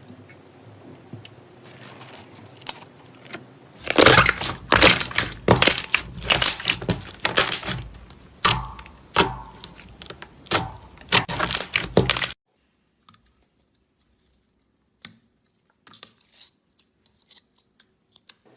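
Slime being squeezed and played with, making dense crackling and popping clicks that build up over the first few seconds and then cut off abruptly, followed by a few faint clicks.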